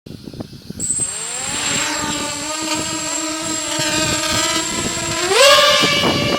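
A quadcopter's Emax MT1806 2300KV brushless motors, run on 4S with 5045 bullnose props, spin up about a second in and settle into a steady propeller whine, with a thin high whistle above it. Near the end the pitch climbs sharply as the throttle is punched.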